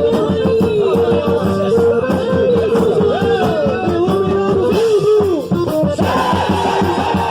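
Forró-style festa junina music with a steady beat, melodic lines and some singing; the texture shifts about six seconds in.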